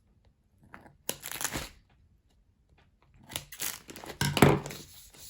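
Gorilla tape and the plastic bag of rice being handled, crinkling and tearing in two stretches: one about a second in, a longer one from about three seconds in.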